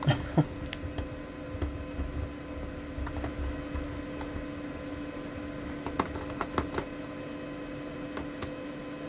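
Scattered light clicks and taps of a screwdriver and fingers on a laptop's plastic case during disassembly, with a small cluster of taps about six seconds in, over a steady faint hum.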